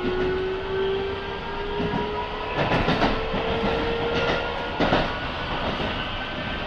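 Keikyu 1000 series electric train's Siemens GTO inverter whining as the train accelerates, its main tone rising slowly in pitch with fainter higher tones above it. A few short knocks from the wheels on the rail come about halfway through.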